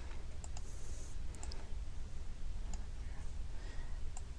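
A few faint, scattered computer mouse clicks over a low steady hum.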